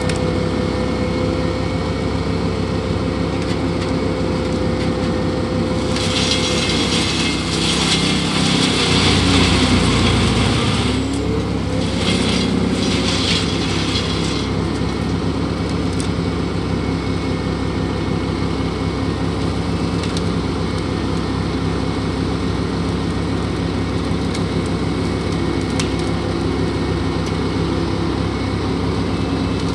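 Scania R620's V8 engine running steadily under load, driving a truck-mounted Bruks wood chipper. About six seconds in, the chipper takes a load of brush: several seconds of loud crunching hiss from wood being chipped, while the engine's pitch sags and then recovers.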